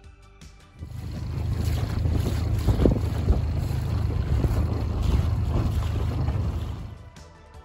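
A dinghy under way on open water: heavy wind buffeting the microphone over the rush of the outboard and water. It cuts in about a second in and drops away shortly before the end, with faint background music on either side.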